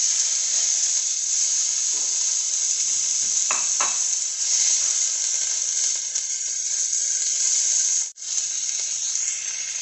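Ground meat sizzling loudly as it fries in hot ghee in a nonstick pan while it is stirred and broken up with a silicone spatula. There are two light knocks a few seconds in and a brief break in the sizzle about eight seconds in.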